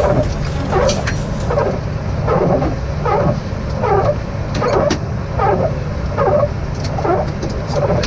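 Steady low rumble of airliner cockpit noise on the ground after landing, overlaid by a repeating sound that falls in pitch, about once every three-quarters of a second.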